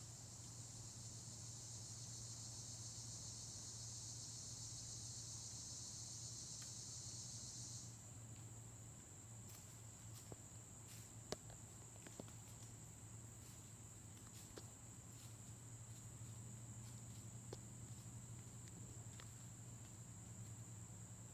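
Insects buzzing in a high, steady band. The louder, broader buzz cuts off suddenly about eight seconds in, leaving a thin, steady high insect tone. Under it runs a faint low hum, with scattered light ticks and one sharper click near the middle.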